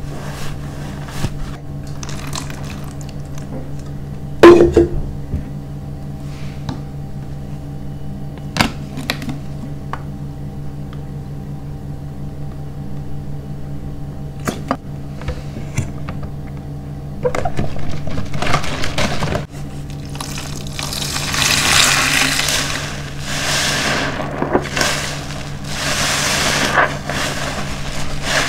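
A large foam car-wash sponge handled over a plastic basin, with a few sharp clicks and knocks in the first half, the loudest about a quarter of the way in. From a little past halfway the sponge, wet and soaked with dish detergent, squelches and fizzes in long stretches as it is squeezed into foam. A steady low hum lies underneath.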